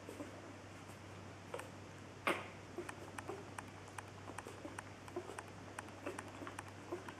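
Day-old Wäller puppies suckling at their mother's teats: many small, irregular wet smacking clicks, with one louder click about two seconds in.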